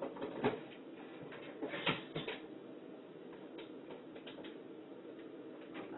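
Scattered knocks and clicks of household items being handled and moved around on a kitchen counter, the loudest knocks about half a second and two seconds in, over a steady low hum.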